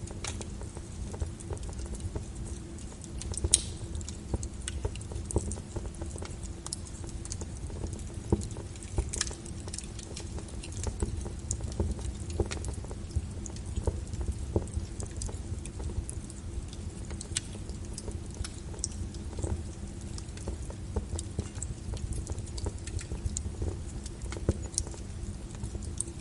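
Wood fire burning in a fireplace: a steady low rumble of flames with frequent irregular sharp crackles and pops, one louder pop about three and a half seconds in.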